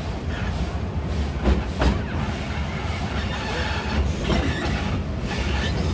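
Narrow-gauge steam train running, its carriage wheels clicking over rail joints in pairs every few seconds over a steady low rumble.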